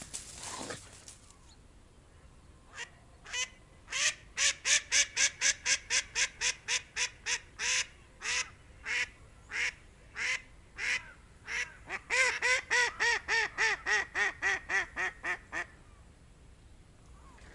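Live decoy hen duck quacking in long descending series, calling to draw in drakes. A run of loud quacks, about two or three a second, fades away, then about a second later a faster run of about five a second starts loud and tails off.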